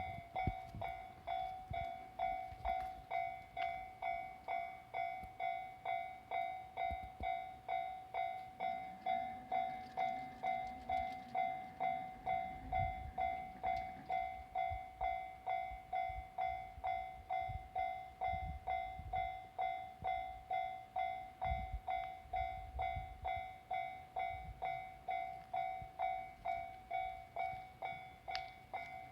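Railway level-crossing warning bell ringing, one clear pitched ding repeating at a steady, even pace: the crossing's alarm for an approaching train.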